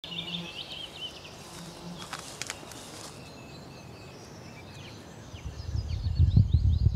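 Woodland birds chirping, then a low pulsing rumble swells in about five and a half seconds in and grows loud.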